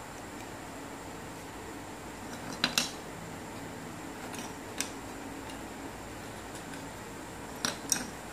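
Hard plastic pieces of a LeFun/Z-Cube keychain Luban lock heart puzzle clicking and clacking as they are pulled apart and set down on a wooden table. A pair of sharp clacks comes about two and a half seconds in, a single one near five seconds and another pair near the end, over a steady low hum.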